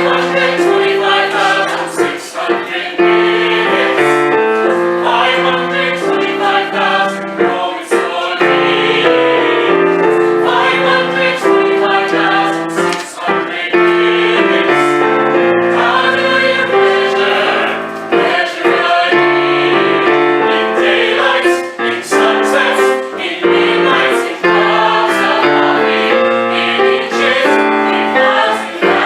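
A choir singing in harmony, with held chords changing every second or so.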